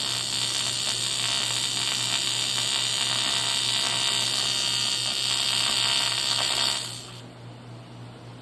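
AC TIG welding arc buzzing with a steady hiss as a water fitting is tacked to the motor plate, the filler rod fed in once both parts melt together. The arc cuts off sharply about seven seconds in, leaving a lower hum from the welder.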